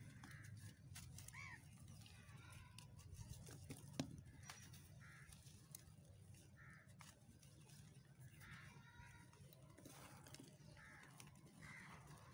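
Faint crunching and crackling of dry, set white cement crumbling in bare hands, with one sharper click about four seconds in. Short bird calls repeat faintly every second or two.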